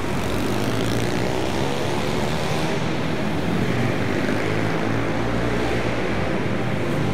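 Several small pit bike engines running at once as the riders lap the course, their overlapping buzz shifting up and down in pitch with the throttle, inside a large empty hall.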